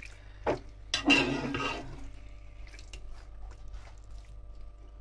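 Raw marinated chicken pieces being stirred and pushed around a nonstick frying pan with a spatula: two sharp knocks of the spatula against the pan about half a second and one second in, then about a second of scraping and stirring noise.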